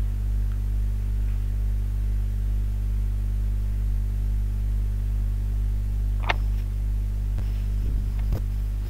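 Steady electrical mains hum, a low drone with a stack of even overtones, with a single short click about six seconds in.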